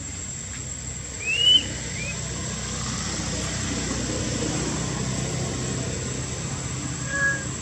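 A baby monkey's short, high crying call that rises and falls, about a second and a half in, with a fainter one just after and another near the end. A steady low rumble and a steady high whine run underneath.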